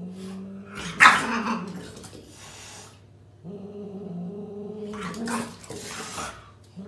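Standoff between a Scottish Fold cat and a French bulldog: a low growl held for a few seconds at a time, broken by sharp hissing bursts about a second in and again around five seconds in.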